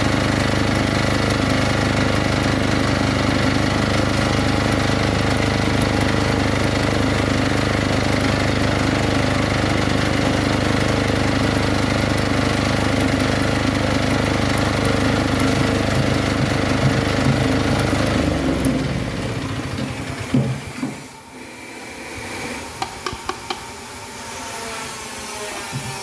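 Small engine driving a charcoal briquette extruder, running steadily, then shutting off and running down about 18 seconds in. After that, scattered light knocks and taps.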